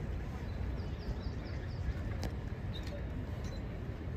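Steady low rumble of outdoor background noise. About a second in, a small bird gives a quick run of five short high chirps, and a faint click follows about two seconds in.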